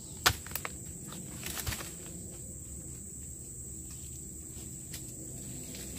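Dodos chisel chopping into the stalk of an oil palm fruit bunch: one sharp strike about a third of a second in, then lighter knocks and rustling about a second and a half in. Insects chirr steadily underneath.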